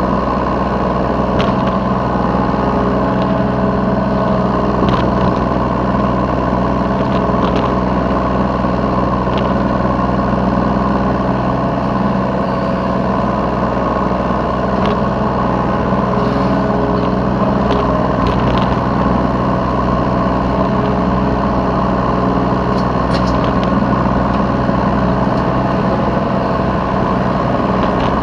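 Yanmar B3 Sigma mini excavator's diesel engine running steadily, heard from the operator's seat, with scattered light clicks.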